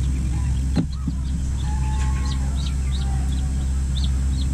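Chickens calling: a string of short, high, falling peeps and a few longer, lower calls, over a steady low hum. A single knock about a second in.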